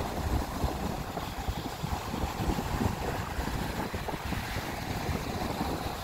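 Sea waves breaking and washing up a sandy beach in a steady wash of surf, with wind buffeting the microphone in a low, uneven rumble.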